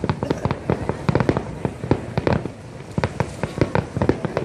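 Fireworks display: a rapid, irregular barrage of sharp bangs and cracks, several a second, over a continuous rumbling background.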